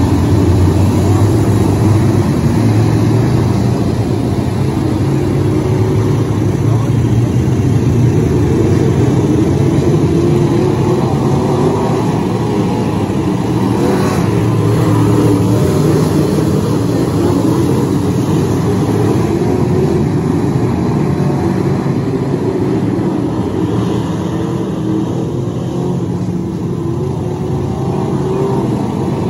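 A pack of dirt-track modified race cars racing on a dirt oval: a loud, steady din of many engines running together.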